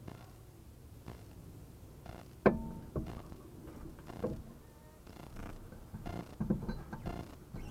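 Front suspension of a 2008 Mk4 Ford Mondeo knocking over speed bumps: a handful of clunks over a low steady rumble. The loudest, about two and a half seconds in, is a sharp metallic clank that rings briefly. The cause is unknown, since nothing looks loose with the wheels off.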